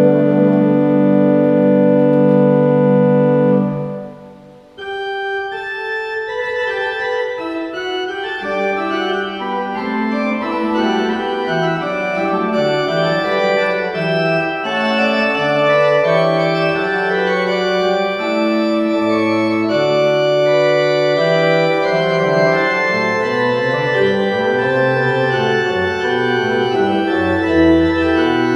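Organ music: a held chord that dies away about four seconds in, then a new passage of moving notes over a changing bass line.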